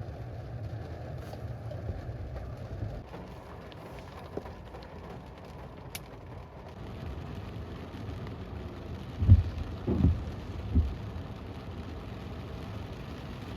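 Rain on a car, heard with a steady low rumble, and three short dull low thumps in quick succession about two-thirds of the way in.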